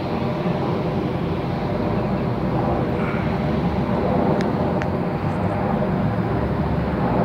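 A formation of six U.S. Army helicopters flying past, making a steady drone with no change in loudness.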